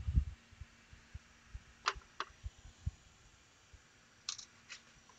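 Handling noise on an electronics workbench: a few sharp clicks and scattered soft bumps as small tools, among them a flux syringe, are picked up and set down on the circuit board.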